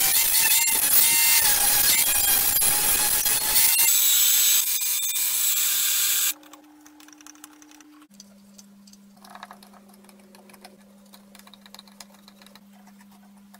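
Cordless angle grinder grinding a steel part, a loud whine over scraping, changing in tone at about four seconds and cutting off at about six seconds. A much fainter drill press then runs with a steady hum and a few light clicks.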